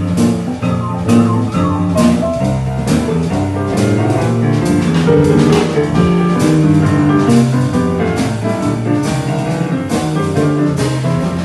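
Solo grand piano playing fast boogie-woogie, a driving left-hand bass under rhythmic right-hand chords and riffs, with sharp, steady note attacks.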